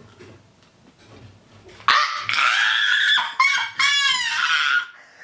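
A woman's high-pitched disgusted squealing and whining in three strained bursts, starting about two seconds in: her reaction to the foul taste of a Bean Boozled jelly bean.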